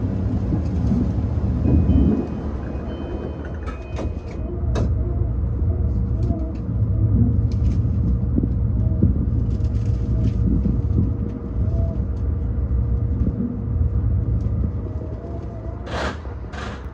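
E235-1000 series electric train running on the Yokosuka Line: a steady low rumble of wheels on rail, with scattered clicks and knocks. A few short high tones sound about three to four seconds in, and a sharper knock comes near the end.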